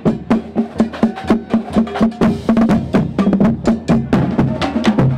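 Marching drumline playing a cadence: Pearl marching bass drums strike changing pitched notes under a fast, steady rhythm of sharp stick clicks.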